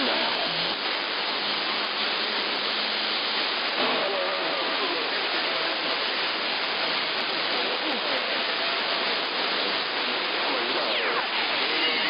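Steady static hiss from a shortwave radio receiver in AM on CB channel 11 (27.085 MHz), with faint, garbled voices of distant CB stations coming in on long-distance skip. A whistle slides down in pitch near the end.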